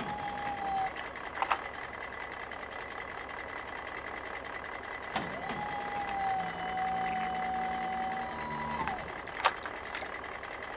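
Small battery-powered motor of a Cat toy train whirring steadily with a high whine, with a few light clicks and two held tones, one near the start and a longer one in the second half.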